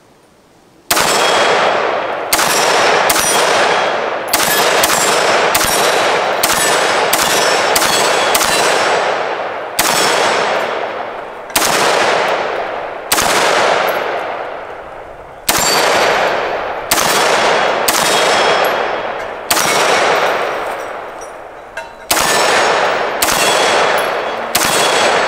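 Argos Ordnance A115 AR-15 rifle in 5.56 fired semi-automatically, about two dozen shots at an uneven pace, some in quick pairs. Each shot is followed by a long ringing tail. The adjustable gas block is set for this ammunition and the rifle cycles every round.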